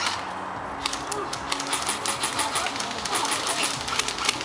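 Airsoft guns firing: an irregular run of sharp snapping shots, several a second, starting about a second in.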